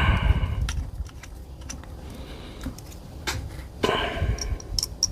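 Small clicks and clinks of hand tools and small screws being handled while screws are started by hand into an air rifle's action. There is a louder clatter with a brief ring at the start and another about four seconds in.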